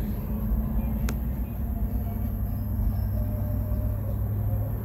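Steady low motor hum and rumble, with one sharp click about a second in.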